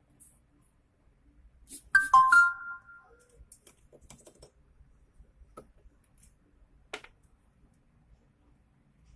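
A short two-note electronic chime about two seconds in, ringing out over about a second, with scattered light clicks and taps before and after.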